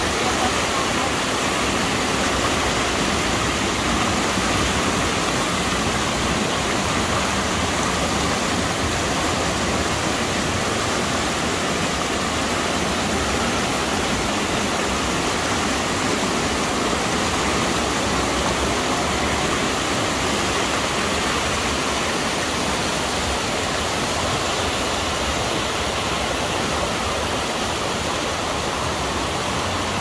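Fast-flowing water rushing steadily and loudly.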